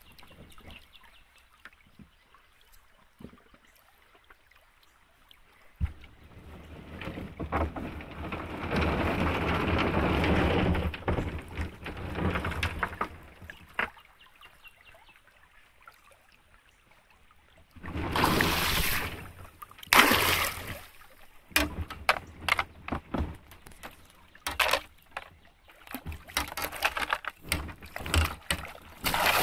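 Shallow river water sloshing and splashing in bursts. Near the end come kayak paddle strokes in the shallows, with sharp knocks.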